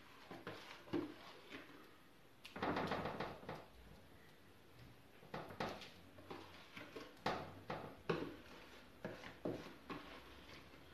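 A clear plastic tub being tapped and shaken upside down to empty it over chicken pieces on a baking tray: a run of light knocks, with a short rush as the contents slide out about two and a half seconds in.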